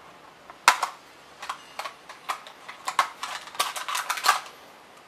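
Plastic canopy of a Walkera V200D01 RC helicopter being pulled off its mounts on the frame and handled: a string of sharp clicks and rattles, the loudest about two-thirds of a second in.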